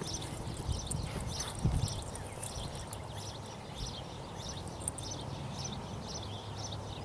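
Hoofbeats of a Quarter Horse reining stallion, a steady rhythm of about two beats a second, over a steady low hum.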